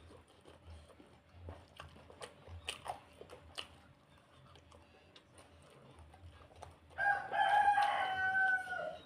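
A rooster crows once near the end, a single drawn-out call of about two seconds that dips in pitch as it finishes. Before it, soft clicks and smacks of eating by hand.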